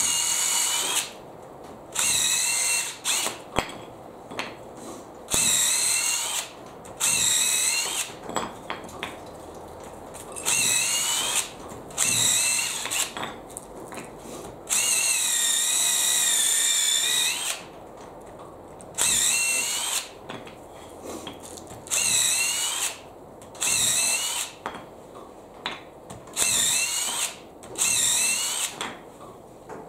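Cordless drill boring pilot holes into 2x lumber so the screws won't split it. The drill runs in a string of short bursts of about a second each, with one longer run of about three seconds midway, its whine wavering in pitch as the bit cuts.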